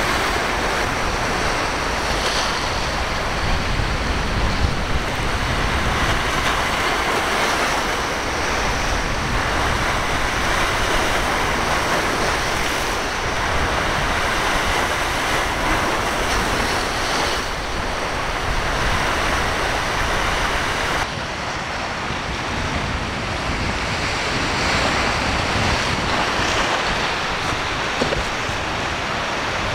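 Rough surf and breaking waves churning steadily, with wind buffeting the microphone.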